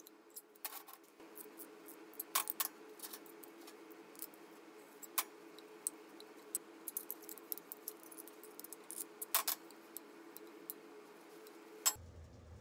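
Small steel parts, square-tube pieces and nuts and washers, clinking and tapping against each other and a steel workbench as they are handled, in irregular sharp clicks with several louder clanks. A steady low hum sits underneath and cuts off abruptly near the end.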